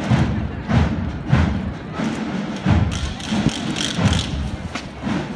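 Procession drums beating a slow, heavy beat, about one stroke a second at slightly uneven spacing, each stroke ringing on briefly.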